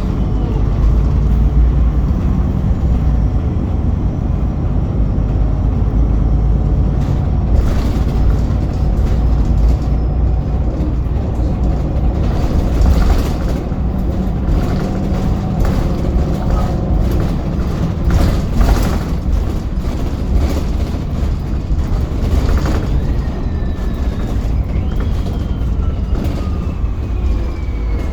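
VDL Pulsar single-deck bus running on the road, with a steady low drivetrain rumble and whines from its differential, two of them sliding down in pitch near the end.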